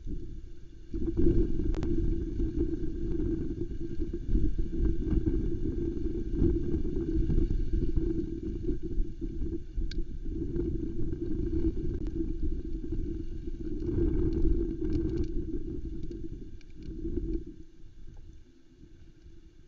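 Wind buffeting the nest camera's outdoor microphone: a heavy, gusting low rumble that rises and falls, with scattered faint ticks above it. It dies down near the end.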